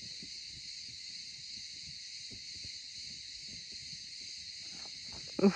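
Steady high-pitched chorus of insects, chirring without a break. Near the end a brief, much louder pitched call or voice cuts in.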